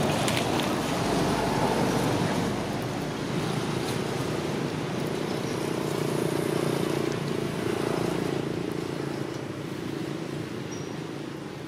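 Steady rushing wind noise on the microphone, with a low steady hum that swells in the middle.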